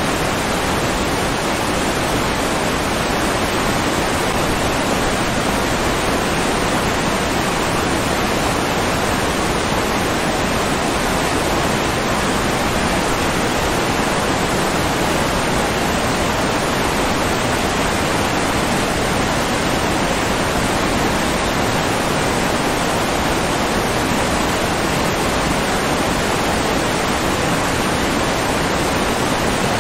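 Steady rush of flowing water, an even hiss that never changes or breaks.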